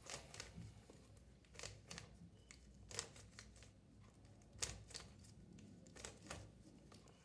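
3x3 Rubik's cube being scrambled by hand: faint, irregular clicks and clacks of its layers turning, the sharpest about three seconds in and again a little past four and a half seconds.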